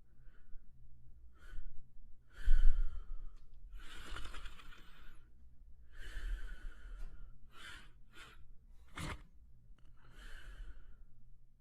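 French Spaniel asleep, breathing and snoring softly: airy, sighing breaths every second or two, the loudest about two and a half seconds in. A short sharp noise comes about nine seconds in.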